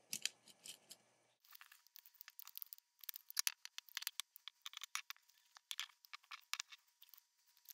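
Scissors cutting through two layers of folded fleece fabric: many short, crisp snips in quick succession, starting about a second and a half in.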